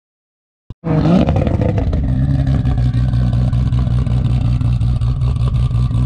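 Toyota Cressida's 2JZ straight-six engine running loud and steady, cutting in suddenly about a second in with a brief rise in revs, then holding an even drone.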